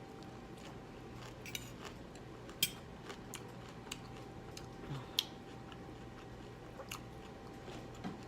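Quiet chewing with scattered small clicks and ticks, over a faint steady hum.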